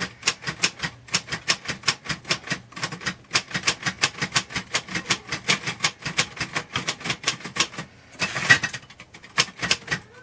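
Royal manual typewriter being typed on: a fast, steady run of key strikes, about five or six a second, then a louder, longer rattling burst near the end.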